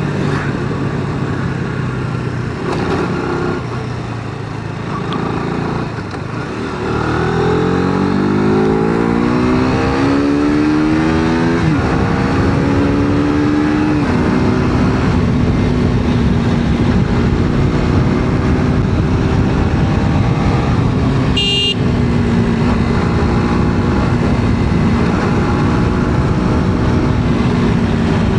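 KTM RC motorcycle's single-cylinder engine under way with wind rush: it accelerates with a rising pitch for several seconds about a quarter of the way in, then holds steady at cruising speed. A short high-pitched beep sounds about three quarters of the way through.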